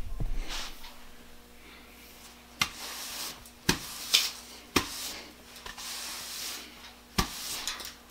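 Push broom sweeping a concrete floor: the bristles swish across it in short strokes, broken by about five sharp knocks of the broom on the floor.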